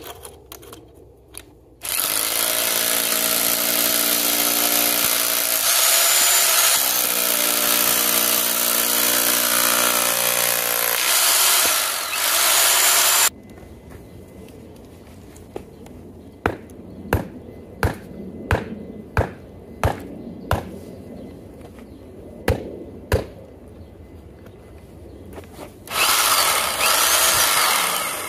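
Glority electric hammer drill with a chisel bit hammering into a concrete fence post base, splitting the concrete. It runs for about eleven seconds and stops suddenly. A string of sharp single knocks follows, and the hammer drill starts again near the end.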